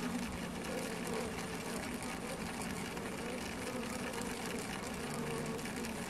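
Honeybees making a rapid, continuous tapping, many small ticks over a steady buzzing hum.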